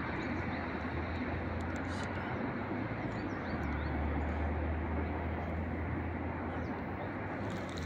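Steady outdoor rumble and hiss with a low hum underneath, and a few faint high chirps now and then.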